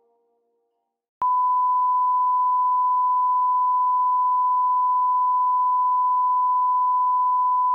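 Steady, unwavering pure test tone of the kind that goes with television colour bars, starting abruptly with a click about a second in after near silence.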